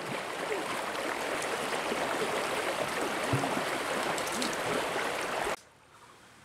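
River water rushing and flowing steadily, cutting off abruptly about five and a half seconds in.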